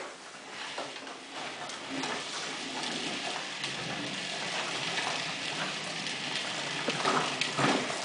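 Hard plastic wheels of a Little Tikes Cozy Coupe ride-on toy car rolling across a hardwood floor, a steady rumble, with a few sharp knocks near the end.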